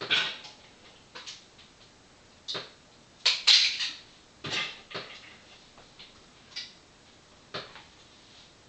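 A string of sharp clinks and knocks from handling in a kitchen, spaced irregularly about a second apart, with a louder short clatter about three and a half seconds in.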